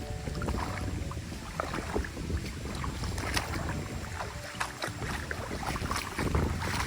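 Water splashing and sloshing in short, irregular splashes, with wind rumbling on the microphone.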